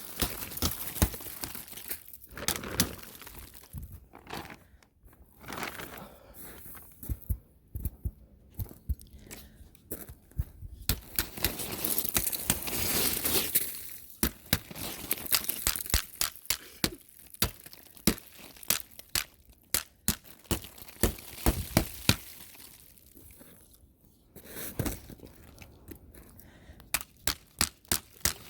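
Thick crusted ice crunching and cracking, with many sharp irregular cracks and crackles and a few quieter pauses, as the icy crust is broken up.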